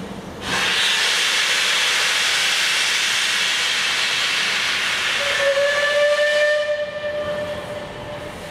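Steam locomotive 34067 Tangmere, a Bulleid Battle of Britain class light pacific, letting off a long, loud hiss of steam. About five seconds in its steam whistle sounds on one steady pitch, then it falls away and fades near the end.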